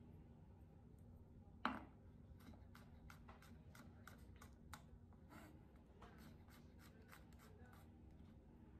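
Chef's knife slicing garlic cloves on a wooden cutting board: a sharp knock a little under two seconds in, then a run of faint, quick taps as the blade meets the board.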